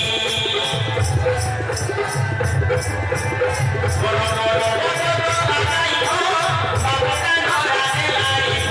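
Desia folk music: a melody line over a steady drum beat, with jingling percussion keeping a quick, even rhythm.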